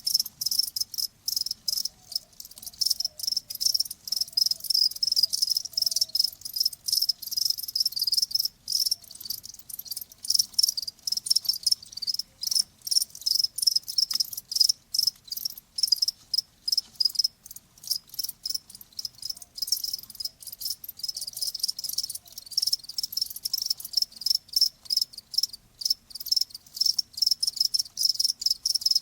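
Crickets chirping: rapid trains of high-pitched pulses that stop and start, with brief gaps between bursts.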